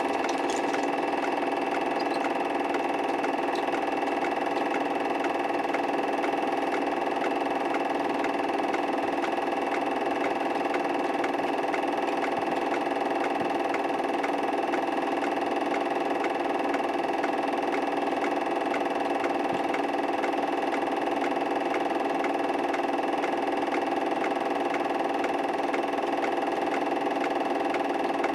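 A steady mechanical hum made of several unchanging tones, with a fine, rapid clatter running under it; it does not change at all over the whole stretch.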